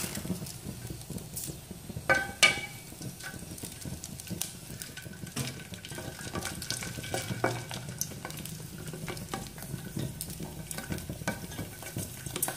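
Prawn crackers deep-frying in hot oil in a stainless steel pot, with a steady crackling sizzle as they puff, stirred with chopsticks. About two seconds in, a sharp metallic clank rings off the pot.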